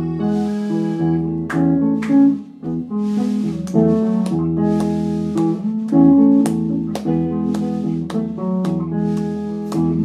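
Instrumental passage of a rock band's song: guitar playing sustained notes that change every second or so, with light percussion ticks over it.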